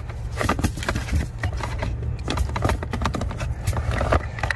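A plastic-framed cabin air filter being pushed and slid into the plastic filter housing of a Tesla Model 3. It makes a string of short, irregular scrapes and clicks over a steady low rumble.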